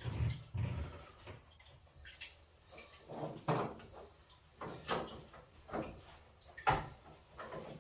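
Irregular clicks and knocks of hand tools and metal fittings being worked on boiler pipework, about eight separate sharp sounds spaced unevenly, some with short scraping.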